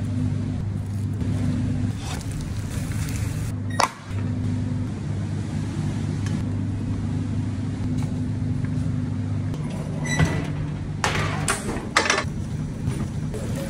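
A steady low mechanical hum of kitchen machinery, briefly breaking about four seconds in, with a few sharp clicks and knocks near the end.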